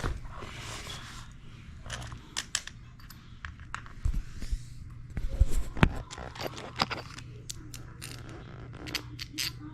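Irregular small metal clicks, taps and scrapes of toilet closet bolts being handled and fitted into the floor flange, a few sharper knocks about four to six seconds in, over a steady low hum.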